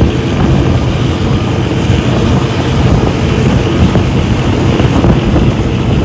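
Passenger train running along the line, heard from an open carriage window: steady running noise of the carriage and wheels, with wind buffeting the microphone.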